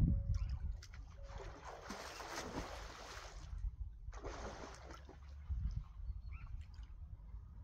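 Water splashing in two surges, a longer one and then a shorter one, over a steady low rumble.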